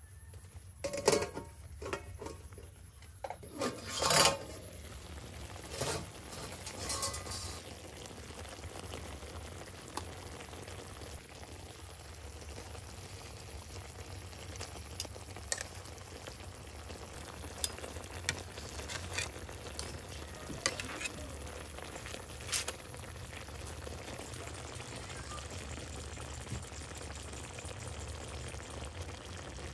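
Chicken wings cooking in their sauce in an aluminium pan, with a steady sizzle. Metal tongs knock and scrape against the pan several times in the first few seconds, with a few lighter clinks later on.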